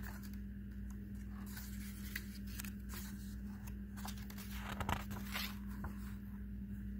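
Pages of a picture book being turned by hand: paper rustling and sliding, with the sharpest crinkles about five seconds in, over a steady low hum.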